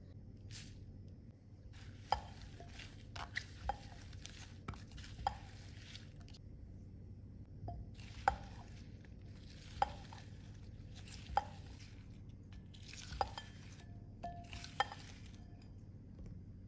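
Sugared, cut strawberries being stirred with a spatula in a glass bowl: soft wet swishing strokes with a sharp knock of the spatula on the glass about every second and a half, in two spells with a short pause between.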